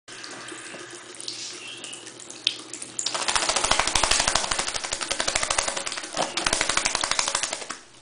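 Tap water running into a sink. From about three seconds in, a lorikeet bathing under the tap flaps its wings hard in the shallow water, a rapid, loud fluttering splash that breaks off briefly past six seconds and stops just before the end.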